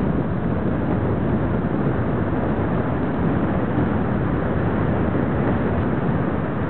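Steady rushing of wind over the microphone of a camera carried by a paraglider pilot in flight, loud and unbroken.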